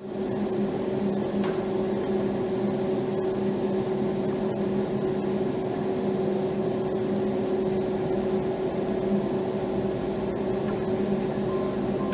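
A steady mechanical hum with an even low drone, unchanging throughout.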